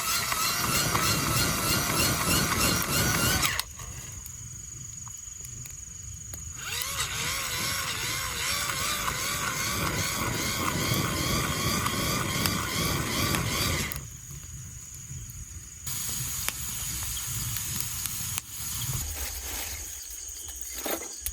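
A small motor whining with a wavering pitch. It cuts off abruptly twice and starts again each time.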